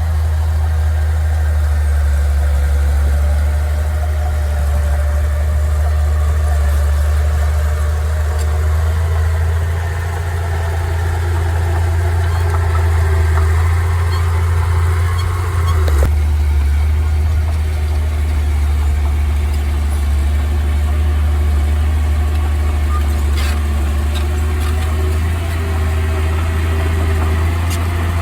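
Heavy earthmoving machinery's diesel engine running steadily with a deep low hum and a brief click about halfway through.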